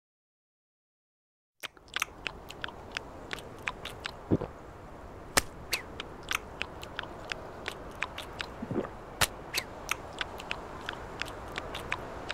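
Cartoon chewing sound effects: quick, sharp crunching bites, about three a second, over a steady wind-like hiss. They begin about a second and a half in, after silence, with a couple of deeper sounds among them.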